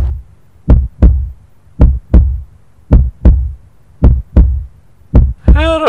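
Heartbeat sound effect: a deep lub-dub double thump repeating about once a second.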